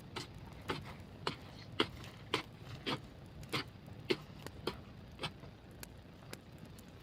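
A regular series of sharp knocks, about two a second, about a dozen in all, growing fainter over the last couple of seconds, over a low steady outdoor background.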